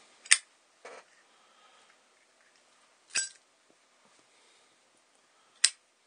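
Zippo lighter being flipped open and snapped shut: three sharp metallic clicks of the hinged lid, about two and a half seconds apart, with a softer rasp shortly after the first click.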